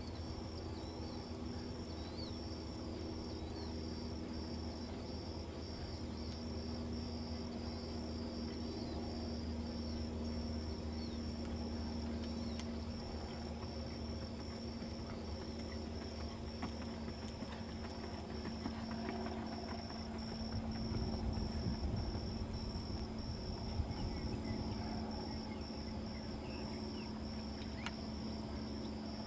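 Insects chirping in a steady, evenly pulsing high-pitched trill over a low steady hum, with a louder low rumble for a few seconds about two-thirds of the way through.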